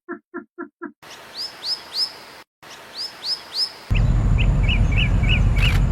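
Bird calls from several short recordings in turn. First a run of quick low pulsed calls, about four a second; then two sets of three sharp, high, down-slurred notes; then a rapid series of chirps over loud low rumbling noise.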